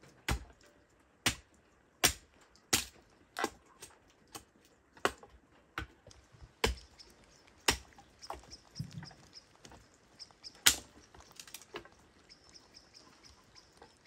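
Hatchet chopping wood: a steady series of sharp chops about every three-quarters of a second, then a few lighter knocks and one more hard chop near the end.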